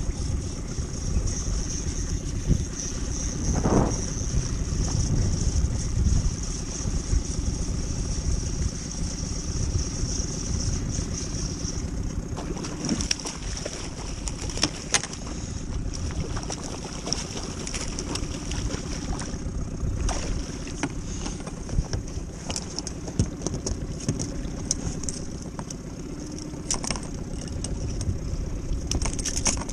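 Wind on the microphone and water slapping against an inflatable boat, with a hooked Spanish mackerel splashing at the surface as it is reeled in about halfway through. Scattered sharp clicks and knocks, more of them in the second half.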